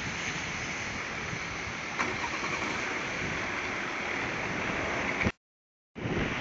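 Steady rushing street noise of traffic on wet roads and wind, with a single sharp knock about two seconds in. The sound cuts out completely for about half a second near the end.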